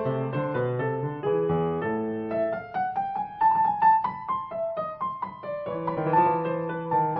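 Background piano music playing a slow melody over held chords, with a stretch of quick repeated notes in the middle.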